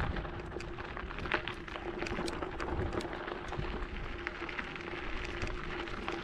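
Bicycle tyres rolling over a gravel road: a steady crackle with scattered sharp ticks of loose stones, over a faint steady hum.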